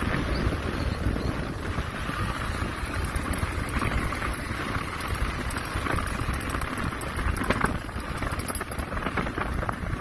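Motorcycle riding along a rough dirt track, wind buffeting the microphone over the bike's running noise, with a few knocks from bumps in the second half.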